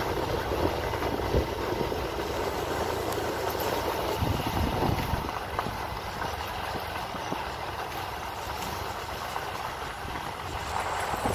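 Motorcycle engine running steadily while riding along a rough dirt road, with a knock about a second and a half in.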